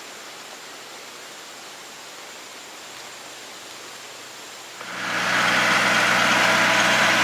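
Faint steady hiss, then about five seconds in a vehicle engine's steady running comes in loud and holds.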